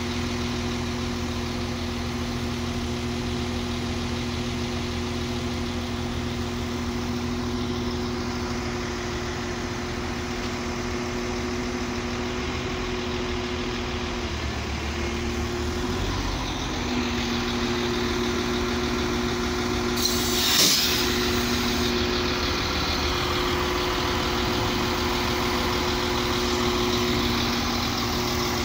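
NI Railways CAF diesel multiple unit running steadily: an engine hum with two held tones that shift in pitch about halfway through. A short hiss of released air comes about two-thirds of the way in.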